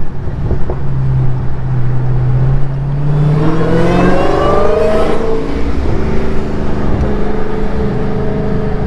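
Dodge Charger Hellcat's supercharged 6.2-litre Hemi V8 under throttle: a steady engine note climbs about three seconds in with a rising supercharger whine, then eases off about five seconds in to a steady cruise.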